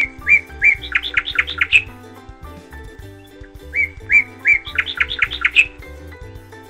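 Background music with a steady accompaniment and a bird-like chirping phrase of two short notes followed by a quick run of chirps, repeated twice in the same way.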